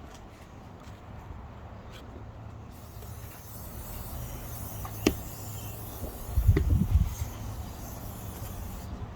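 Aerosol brake cleaner spraying in a steady high hiss that starts about a third of the way in, with a sharp click near the middle and some low rumbling thumps a little later.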